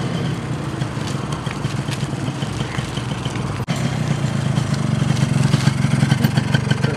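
A small step-through motorcycle's engine runs steadily as the bike rides toward the camera, with a brief break about halfway through. It grows a little louder as the bike comes close.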